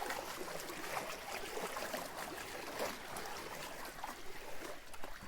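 Water sound effect: irregular splashing and trickling, a haze of small splashes and bubbling at a moderate level.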